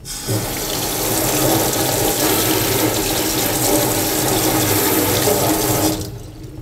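Kitchen mixer tap running onto a bamboo matcha whisk (chasen) and into a stainless steel sink as the whisk is rinsed out. The water is steady and is shut off about six seconds in.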